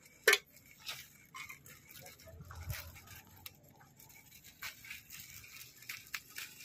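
White granules poured from small plastic packets, pattering in scattered trickles onto sacking and gravelly soil, with the packets crinkling; one sharp crackle comes just after the start.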